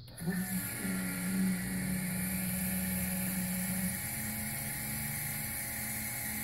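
AirDog 150 diesel fuel lift pump running on its new 4G 150-gallon-per-hour motor: a steady electric whir with a hum that starts suddenly at the outset and steps up slightly in pitch about four seconds in. It runs quietly.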